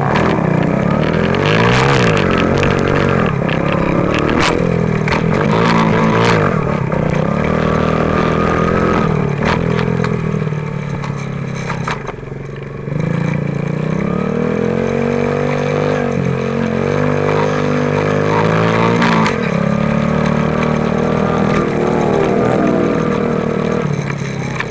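A 50cc pit bike engine being ridden hard on a dirt track, its pitch rising and falling with throttle and shifting. It drops off briefly about halfway through and then picks up sharply. Occasional knocks sound over it.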